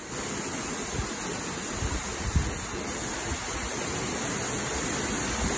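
Steady rushing roar of a tall waterfall, with water falling a long way down a rock face.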